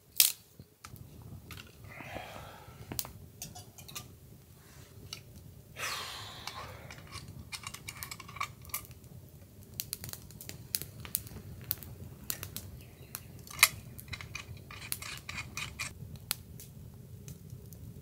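Small campfire of dry twigs and lichen crackling, with irregular sharp pops and snaps; one louder snap comes about thirteen and a half seconds in. A brief rushing noise passes about six seconds in.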